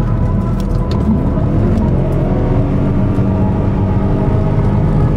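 Shelby GT Mustang's V8 engine pulling along at steady road speed, heard from inside the cabin. Its note rises briefly about a second in, then holds steady.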